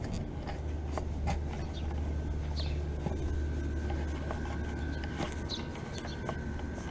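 Outdoor heat pump units running in heat mode: a steady low compressor and fan hum, joined about three seconds in by a thin, steady higher whine.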